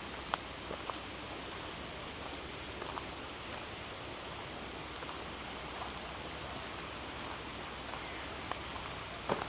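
Steady outdoor garden ambience, an even hiss, with a few faint scattered taps and a short cluster of louder clicks near the end.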